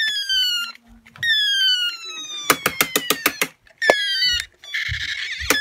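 Small toy blasters being fired in turn: several high-pitched tones that slide downward, one of them a long glide, a quick run of about eight sharp clicks in the middle, and a short hiss near the end.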